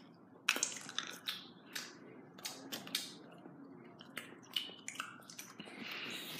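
Scattered soft clicks and smacks of a mouth chewing and sucking hard candy close to the microphone.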